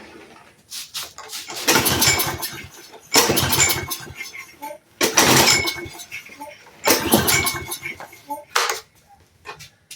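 Troy-Bilt push mower's small engine being pull-started: several pulls on the recoil starter cord about two seconds apart, the engine cranking and sputtering as if about to fire but not catching.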